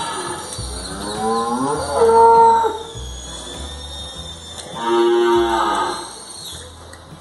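Cattle mooing: two long calls, the first rising in pitch and then held, about two seconds in, the second about five seconds in.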